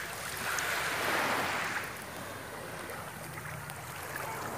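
Small waves washing up on a sandy beach: one wash swells and fades in the first two seconds, then a quieter steady hiss of water follows.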